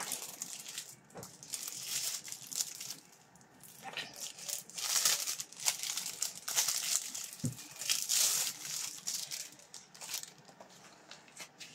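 Crinkling plastic wrap around a rolled-up canvas being turned and handled, in irregular rustling spells with small clicks, busiest from about four to nine seconds in.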